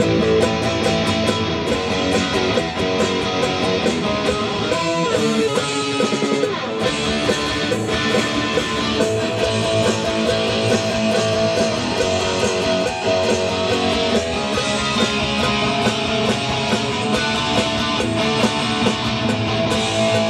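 Indie rock music led by layered electric guitars, played steadily and loud.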